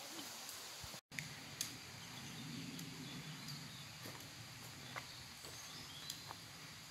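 Faint footsteps and scattered light clicks on a woodland path, over a quiet steady outdoor background. The sound cuts out completely for an instant about a second in.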